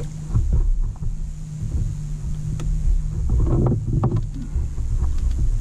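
Wind rumbling on the microphone, with scattered knocks and a splash as a fish is handled at the side of a small wooden boat.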